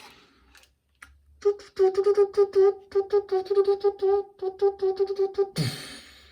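Short flute-like music jingle: a quick run of short notes, about four or five a second, mostly on one pitch. It starts after a moment of quiet and ends in a brief noisy swish.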